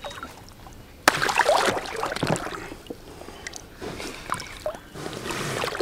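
Water splashing and sloshing at the side of an inflatable boat as a wels catfish is held and handled at the surface: a sudden loud splash about a second in, then smaller splashes and light clicks, building again near the end.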